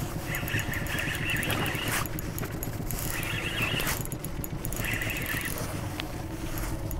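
Fishing reel whirring in three short bursts as a hooked fish is played on a hard-bent rod, over a steady low rumble of wind and water.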